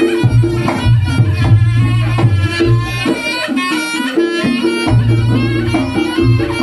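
Live Reog Ponorogo gamelan music: a shrill, reedy slompret (shawm) melody over a steady drum beat. The low sustained part drops out for about a second near the middle, then returns.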